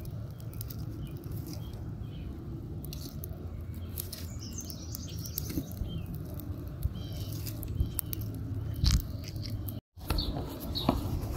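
Dry twigs and sticks crackling and snapping as they are pushed into a small kindling fire in a clay pot, over a steady low rumble, with a few bird chirps. The sound cuts out briefly near the end.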